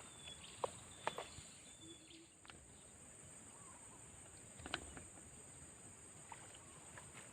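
Steady high-pitched drone of insects, a cricket or cicada chorus, with a few faint short clicks scattered through.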